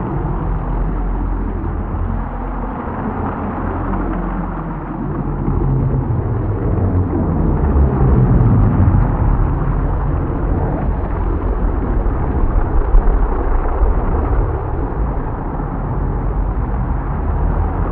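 Simulated thunderstorm: continuous low thunder rumble over a dense noisy wash, swelling louder in the middle, with a brief sharper peak about two-thirds of the way through.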